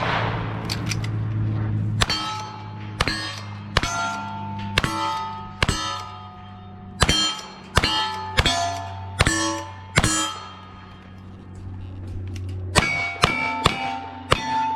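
A string of gunshots in a cowboy action shooting stage, each hit answered by the clang and ring of a steel target. The shots come about one a second, then pause and end in a quicker burst of five near the end.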